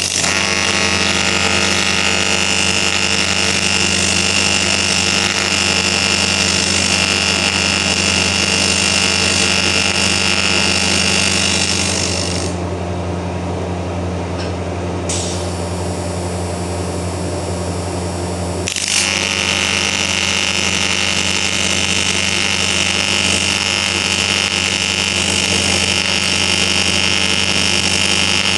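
AC TIG welding arc on cast aluminium, a steady buzzing hiss over the Hobart Beta-Wave 320 welder's hum. The arc cuts out about halfway through and strikes again several seconds later, while the hum continues.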